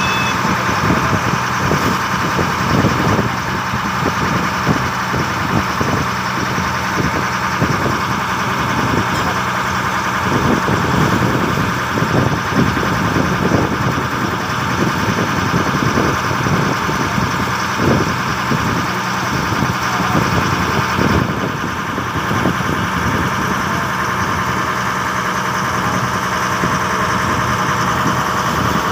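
A small wooden boat's engine running steadily as the boat moves, with water rushing and slapping against the hull.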